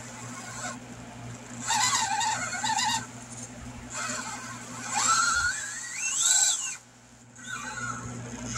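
Electric drive motor and gearing of a Furitek Fury Wagon 1/18-scale RC crawler whining in three bursts of throttle. Partway through, the whine climbs steeply in pitch as the motor speeds up.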